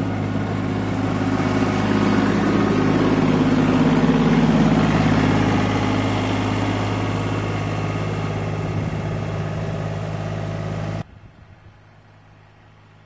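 A motor engine running steadily, swelling louder over the first few seconds and easing off again, then cutting off abruptly about eleven seconds in.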